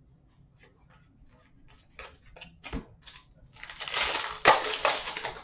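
Hands handling trading cards: a few light card clicks, then, about three and a half seconds in, a loud crinkling rustle with one sharp snap, as a foil trading-card pack wrapper is torn open.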